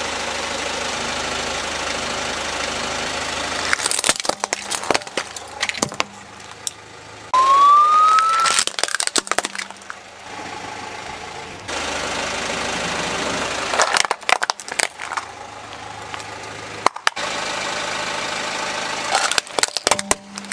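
A car engine idling steadily, broken three times by bursts of cracking and crunching as plastic toys are crushed under the car's tyre. A short rising squeal comes about seven seconds in.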